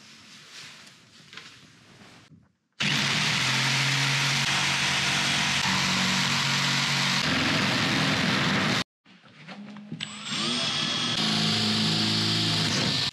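Electric jigsaw cutting through an OSB board, running steadily for about six seconds and stopping suddenly, then, after a short break, a cordless drill boring into the OSB.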